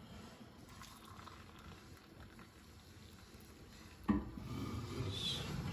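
Near quiet at first. About four seconds in there is a sharp knock, then a steady rush of boiling water being poured into a cup.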